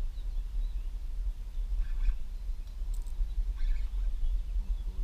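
Low, fluttering wind rumble on the microphone, with a few faint bird chirps about two and three and a half seconds in and a short click near three seconds.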